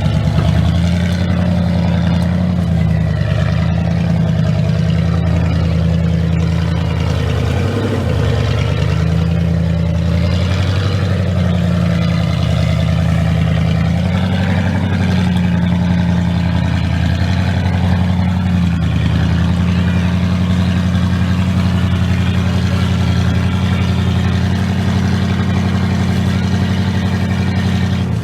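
Off-road vehicle engine running at low revs, with a few brief small rises and dips in revs.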